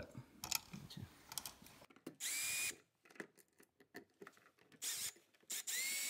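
Milwaukee cordless drill/driver running in two short bursts as it drives a dimmer switch's mounting screws into the wall box: a brief whine that spins up about two seconds in, and another starting near the end. Faint clicks of handling in between.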